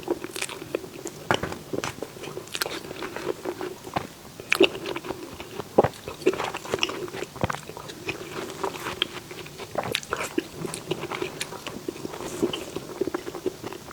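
Close-miked eating sounds of someone chewing a dessert: wet mouth clicks and smacks, irregular and many per second, with an occasional sharper bite.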